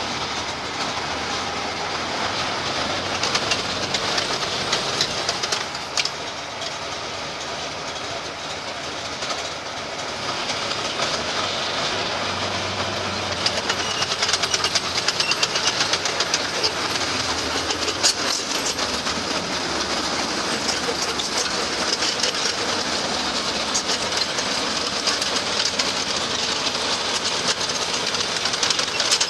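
Replica Panther tank's engine running with a dense, rapid rattling clatter, louder from about halfway through.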